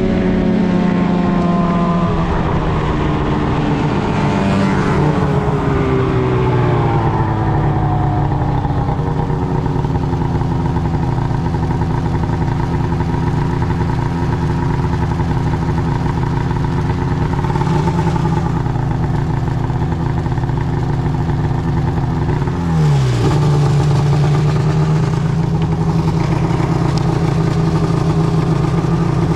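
Arctic Cat M8 snowmobile's two-stroke twin engine running, its pitch falling over the first few seconds as the sled slows, then holding steady. About three-quarters of the way in the pitch drops sharply and the engine settles into a steady idle.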